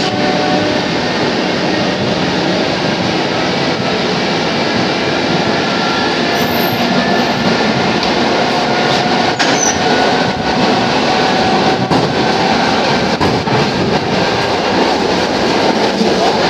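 Running noise of a Russian electric commuter train (elektrichka) heard from inside the carriage: a loud, steady rumble of wheels on rails with faint thin whining tones over it and a few short clicks.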